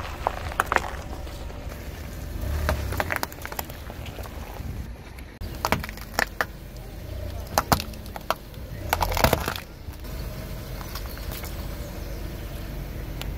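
A car tyre rolling slowly over food and crushing it: watermelon halves, a carrot and a tomato. It gives a string of sharp cracks and snaps with wet squishing, over a low steady car rumble.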